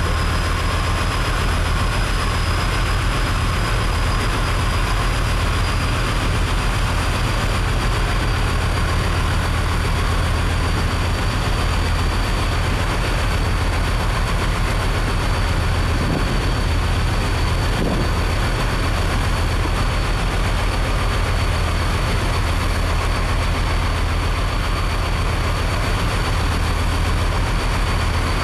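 A ship's engines running steadily under way, a constant low hum with a thin high whine above it.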